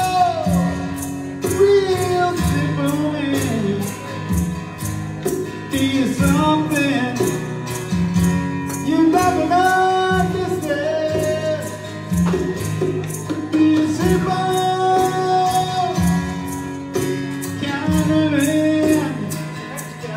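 Live acoustic duo playing a song: strummed acoustic guitar keeping a steady beat, with long held, bending vocal notes over it.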